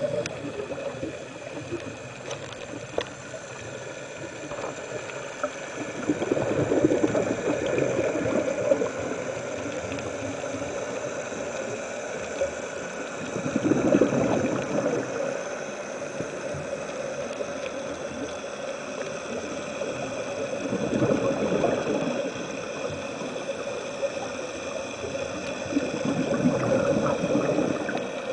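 Underwater recording of a scuba diver's breathing: exhaled bubbles gurgle past the camera in four surges, roughly every seven seconds, over a steady underwater hiss.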